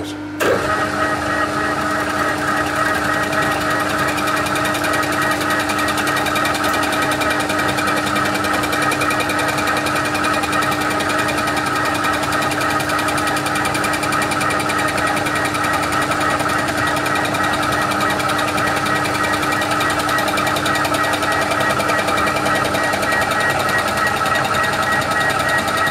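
TOS FNK25A milling machine running up and face-milling an aluminium cylinder head in a light two-thou skim cut: a steady machine whine with several fixed high tones, starting with a short jolt about half a second in.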